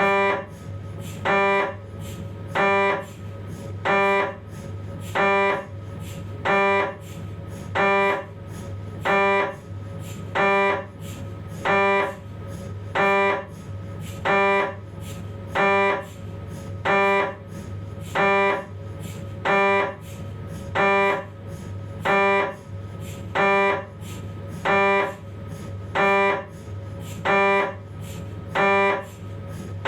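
Philips 1.5 T MRI scanner's gradient coils running a 3D T2-weighted spine sequence: a pitched buzzing pulse about every 1.3 seconds, each about half a second long, over a steady low hum.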